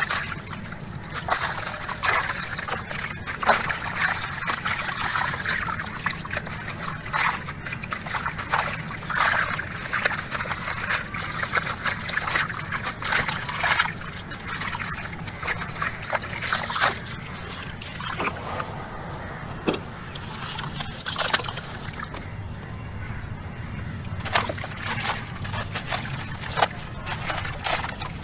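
Dried sand-cement chunk crumbling in bare hands, its grit and small lumps pattering and splashing into a tub of water. Irregular crunches and splashes, easing off for a while past the middle.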